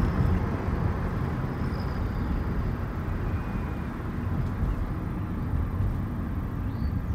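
Steady low road and engine rumble heard from inside a moving car.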